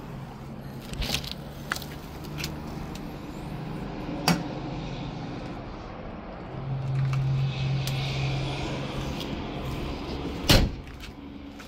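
Clicks and knocks of an RV's exterior storage-compartment door, its paddle latch being worked and the door swung open, over a low steady hum that swells in the middle. A sharp, loud thump near the end.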